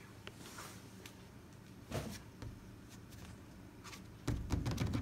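Plastic door panel of a stackable cube organiser being handled against its frame: light clicks with a sharper knock about two seconds in, then louder rattling and knocking from about four seconds in.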